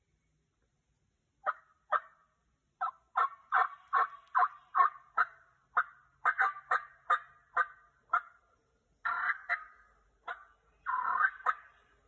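Turkey yelping: a run of about twenty short, sharp notes, two to three a second and loud, beginning about a second and a half in, with a few longer, drawn-out notes near the end.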